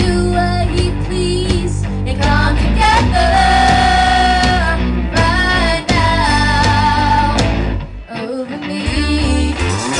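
Live rock band: female vocalists singing over electric guitars and drums, with one long held sung note a few seconds in. The low end drops out briefly near the end before the guitars come back in.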